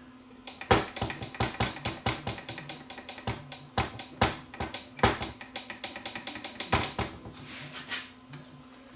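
Irregular metallic clicks and taps of the Dual 1225 turntable's changer levers and linkage being worked back and forth by hand, the sticking pivot freshly oiled.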